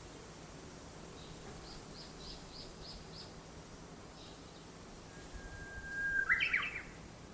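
Songbirds singing: a faint run of about six quick high notes about two seconds in, then a thin held whistle that breaks into a loud burst of chirps near the end, over a steady low background hum.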